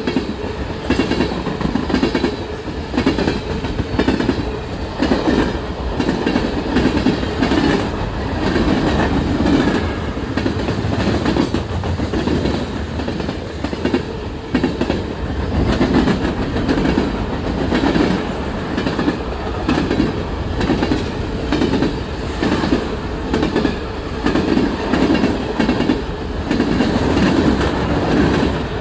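BNSF freight train rolling past, its cars' wheels clacking over the rail joints in a steady repeating rhythm.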